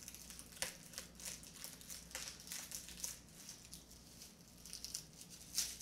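Dry, papery garlic skins crinkling and crackling as cloves are broken off a head of garlic by hand, in an irregular run of short crackles and snaps.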